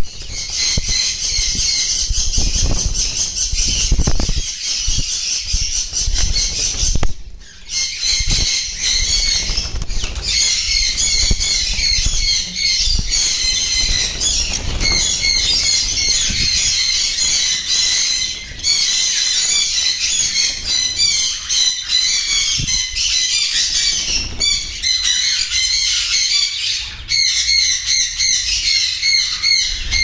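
A flock of caged small parrots, conures among them, keeping up a dense, continuous shrill chatter of rapid calls. Wing flapping and low thuds are mixed in during the first several seconds.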